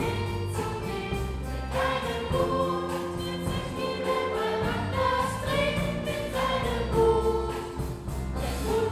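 Children's choir singing a song in long held notes over an instrumental accompaniment with a steady bass line.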